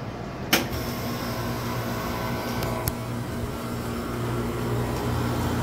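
Steady hum of Slurpee frozen-drink machines running, with a sharp knock about half a second in.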